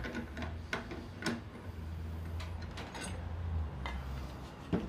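A wooden bench vise being loosened and a wooden table leg lifted out of it: scattered wood-on-wood knocks and clicks over a low hum.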